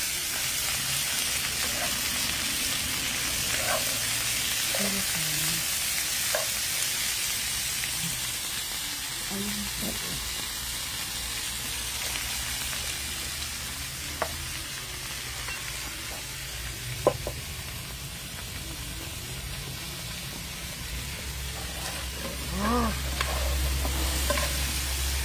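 Onions, sweet peppers and chicken sizzling steadily in a frying pan over a wood fire, with metal tongs stirring and clicking against the pan a few times.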